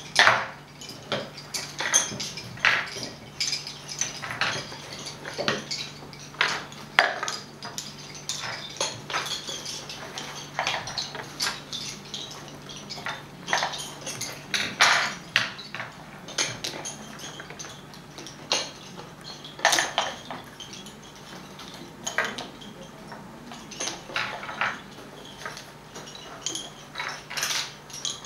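Lace bobbins clicking against each other as bobbin lace is worked on a lace pillow: irregular sharp clicks, a few a second, over a faint steady hum.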